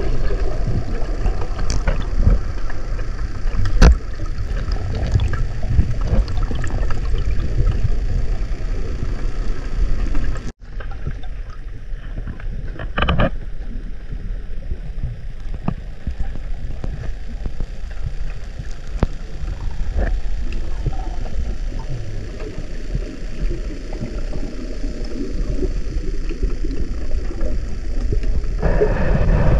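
Muffled low rumble and water noise picked up by an underwater camera, with occasional sharp knocks. It drops out for an instant about ten seconds in, then carries on a little quieter.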